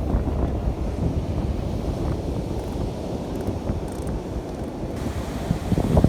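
Wind buffeting the microphone: a steady low rumble that swells in gusts near the end.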